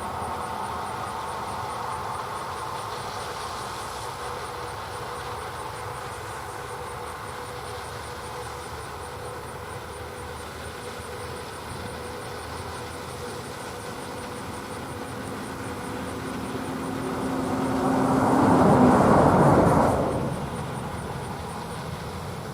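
John Deere tractor and peanut picker running in the field with a steady drone and hum. It grows louder toward a peak about nineteen seconds in as the machine passes close, then fades.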